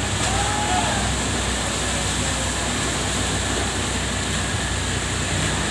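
Steady mechanical drone with a constant rushing noise over it, unchanging throughout.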